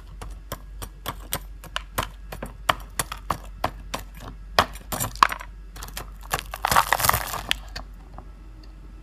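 A metal fork poking and scraping through crispy, crumb-coated fried food in a bowl: irregular crackles of the crunchy breading and clicks of the tines. The sound is densest about seven seconds in and dies down near the end.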